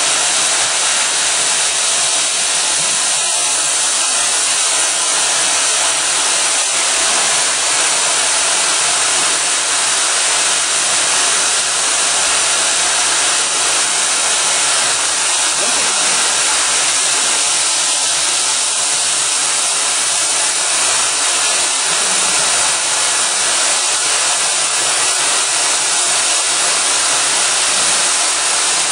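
Steady, even hiss from a friction stir welding setup while its rotating tool traverses a seam in aluminium, with a cooling nozzle aimed at the tool.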